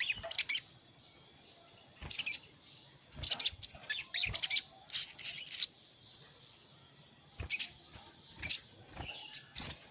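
Sogon sunbird (kolibri sogok ontong) calling: clusters of short, sharp, high chirps with gaps of a second or more between them, over a steady thin high-pitched tone. This is the call used as a lure to bring wild sogon down to a trap.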